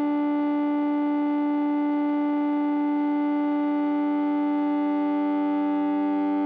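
Background music: a single chord held steady without change, with a synthesizer-like tone.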